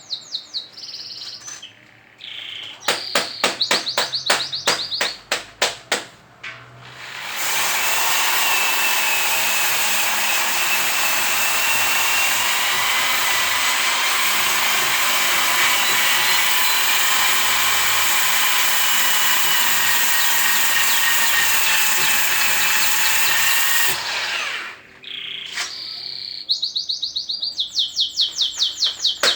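Birds chirping in quick, rapid-fire series, then a power tool runs steadily for about seventeen seconds with a wavering whine as it polishes a steel pot. The birds chirp again once the tool stops.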